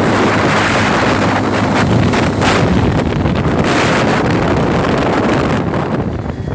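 Heavy wind noise on the microphone of a moving quad bike (ATV), surging a few times in the middle, with the quad's engine running underneath.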